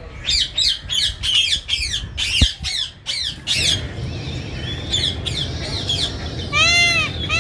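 Birds squawking: a fast run of harsh chirping calls for about three seconds, then, near the end, a series of repeated arching calls with a clear pitch, about two a second.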